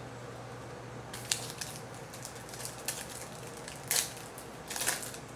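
Foil trading-card pack being crinkled and torn open, with the cards handled: a run of small crinkles and clicks, then two louder rustles about four and five seconds in.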